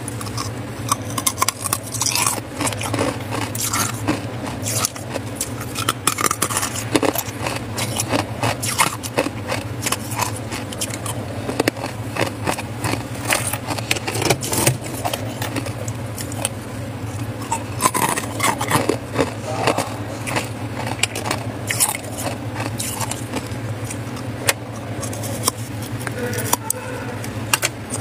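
Ice cubes clinking, rattling and scraping against each other as a hand stirs and grabs them in an ice bin, many small knocks over a steady low machine hum.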